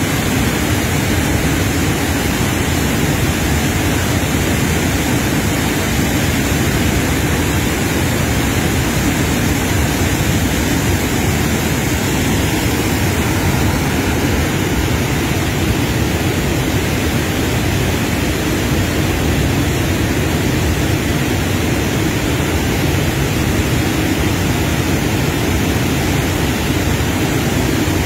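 River waterfall and rapids rushing: a loud, steady wash of falling and churning water that does not let up.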